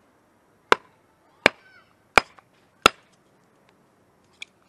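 A hatchet chopping into a firewood log on a cherry-wood chopping block: four sharp blows about 0.7 s apart, then a lighter knock near the end. The log isn't splitting cleanly and the blade stays stuck in it.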